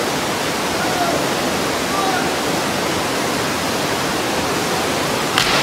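Steady rush of falling water, like a waterfall, with faint distant voices. There is a brief louder burst of noise near the end.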